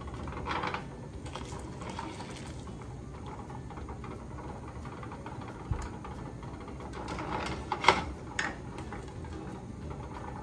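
Hot glass canning jar lifted out of water with a metal jar lifter, water running off it, then set down on a towel with two sharp knocks close together about eight seconds in.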